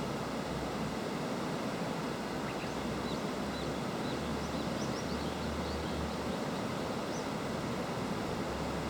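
Steady rushing of a river. A scatter of faint, short, high chirps comes through in the middle.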